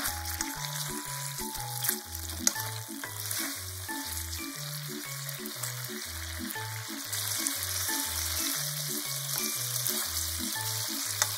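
Pork-wrapped rice balls sizzling in a frying pan as their soy sauce, mirin and sake glaze simmers down, with a few clicks of chopsticks against the pan as they are turned. Background music with a steady bass line plays underneath.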